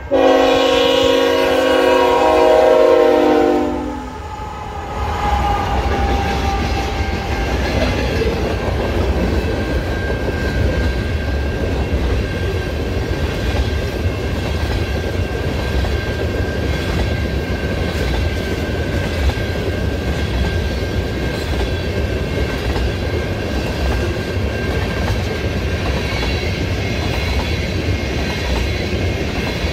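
Freight train led by GE ET44AC diesel locomotives. The locomotive horn holds a loud chord that cuts off about four seconds in, then the train rolls past with a steady rumble as tank cars clack over the rail joints, and a faint steady ringing tone sounds throughout.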